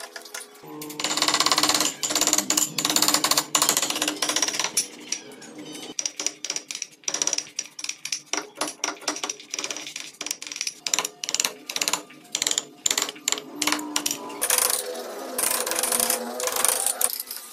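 Wooden mallet tapping a carving gouge through wood in rapid, light blows, several a second.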